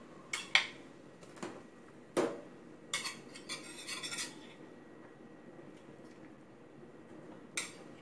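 Sharp metal clinks and knocks of a bowl and utensils against an enamel pot as sea bass fillet goes into boiling rice soup, with a steady low bubbling of the boil underneath. The clinks are loudest about two seconds in and cluster again around three to four seconds in, with one more near the end.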